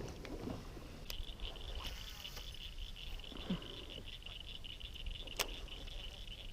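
A steady, high-pitched chirring chorus of small calling animals, starting about a second in, with a couple of sharp clicks over it.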